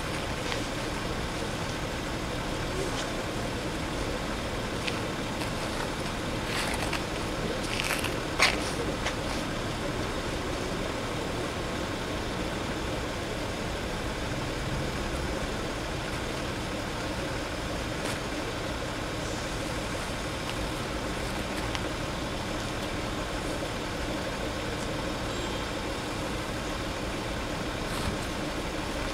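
Steady outdoor road-traffic noise of cars idling and passing at a closed level crossing, with a short sharp knock about eight seconds in.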